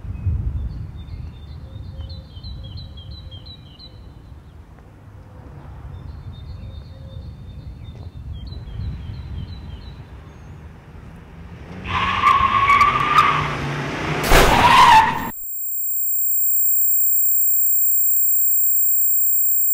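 Quiet street air with faint birdsong, then a car's tyres squeal loudly about twelve seconds in, followed by a sharp impact about two seconds later. The sound cuts off suddenly and a steady high-pitched electronic ringing tone takes over.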